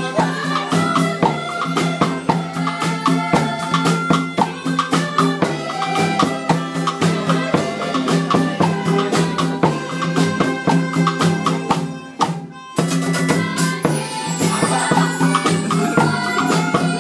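Music with a fast, steady rhythm of shaken percussion over sustained low notes; the sound drops out briefly about twelve seconds in.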